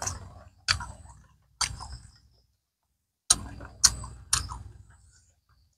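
Close-miked mouth sounds of a person chewing balut (steamed fertilized duck egg): a series of about six sharp wet smacks and clicks, with a quiet pause of under a second in the middle.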